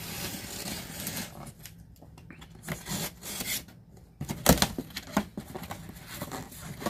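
Safety box cutter slicing along the packing-tape seam of a cardboard box, a scraping, tearing sound. Then come a few sharp knocks and rustles of cardboard as the box is handled, the loudest about four and a half seconds in.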